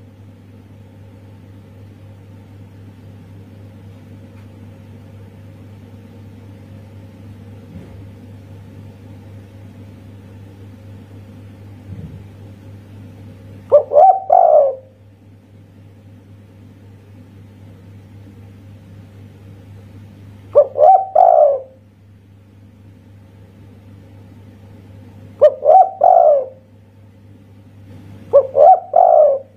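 Spotted dove cooing: four short phrases of a few coos each, the first about halfway in and the rest a few seconds apart. A steady low hum sits underneath.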